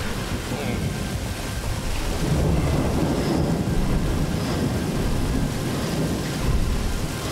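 Heavy rain pouring steadily, with a low roll of thunder building about two seconds in and rumbling on for several seconds.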